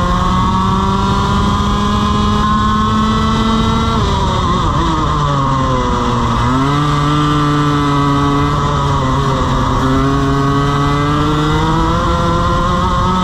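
Onboard sound of a two-stroke TaG racing kart engine at race pace. The note climbs along a straight, drops quickly as the kart slows for a corner about four seconds in, and is lowest around six seconds in. It then climbs steadily again as the kart accelerates out.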